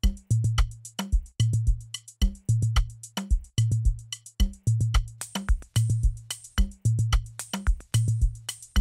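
Programmed drum beat playing back from FL Studio during a drum mix: a deep kick with a short held bass note repeats about once a second under quick hi-hat ticks and snare hits. Brighter hi-hats join about halfway through.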